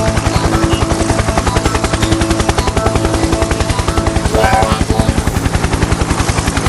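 An intro logo jingle run through a heavy distortion and stutter effect, chopped into rapid even pulses about ten a second so it flutters like a helicopter, with the tune faintly audible underneath. It cuts off suddenly near the end.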